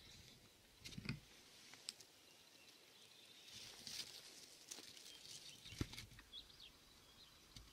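Near silence: quiet outdoor ambience with scattered faint clicks and rustles, and a few faint high chirps near the end.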